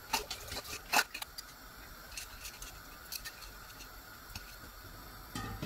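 Stainless-steel bowl and spoon clinking and scraping against the rim of a steel pot as soaked rice and green gram are tipped in: several sharp clinks, the loudest about a second in. A steady faint hiss underneath.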